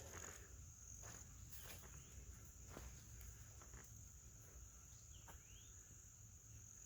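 Near silence with a faint, steady high-pitched insect drone, cricket-like, and a few soft ticks.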